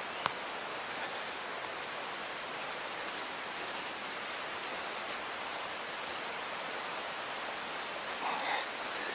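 Steady rushing hiss of flowing water from a nearby stream or waterfall, with a few brief scuffs of footsteps on a dirt path from about three seconds in.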